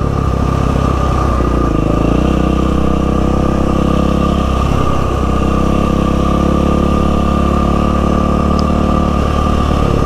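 Yamaha WR450F's single-cylinder four-stroke engine running steadily while the motorcycle rides along, easing off briefly about two seconds in and again about five seconds in.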